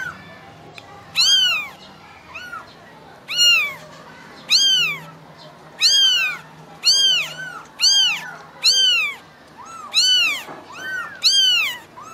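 Very young kittens meowing over and over, about one loud high-pitched cry a second, each one rising and then falling in pitch, with softer cries overlapping in between. These are the distress calls kittens make when calling for their mother cat.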